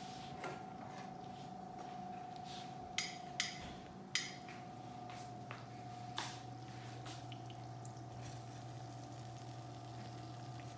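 Fry bread dough frying in hot oil in an electric skillet, a quiet steady sizzle over a faint steady hum. Metal tongs click sharply several times against the pieces and the pan in the first half as the bread is turned.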